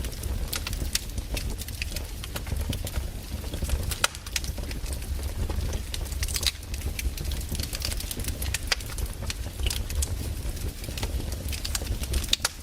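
Wood fire crackling: irregular sharp pops and snaps of burning logs over a steady low rumble.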